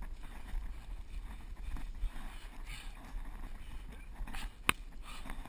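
Scuffing and rustling of hands and body crawling over grass, with wind rumble on the action-camera microphone and one sharp tap near the end.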